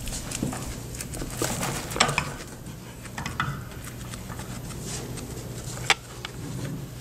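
Skinny pig (hairless guinea pig) eating hay and rustling through hay and paper bedding: an irregular run of small crunches and clicks, busiest about two seconds in, with one sharp click near the end.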